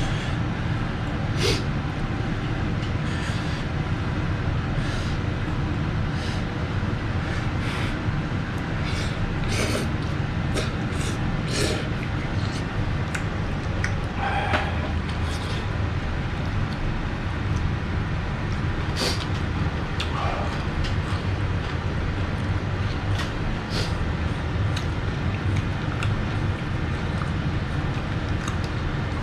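Close-up eating noises, with small clicks and smacks scattered throughout, over a steady low hum.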